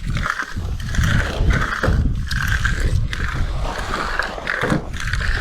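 Repeated scraping strokes of a concrete finishing tool drawn back and forth across fresh concrete, about two strokes a second, over a low rumble.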